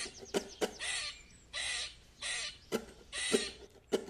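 Digging sound effect: four short scrapes, like a spade scooping into dirt, with sharp clicks between them.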